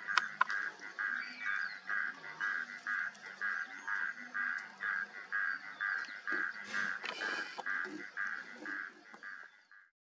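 A small wild animal calling in a steady series of short, evenly spaced notes, about two or three a second, with a brief rustle about seven seconds in; the sound fades out near the end.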